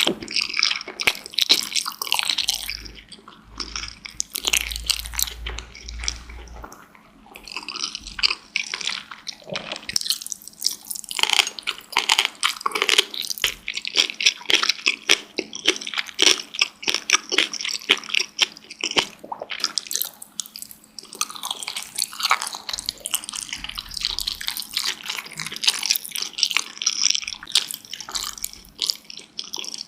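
Close-miked wet chewing and mouth smacking of a person eating dumplings: a dense, irregular run of small moist clicks and squishes.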